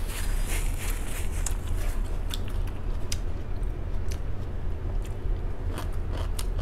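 A person chewing a mouthful of crisp lettuce salad, with irregular crunches and mouth clicks.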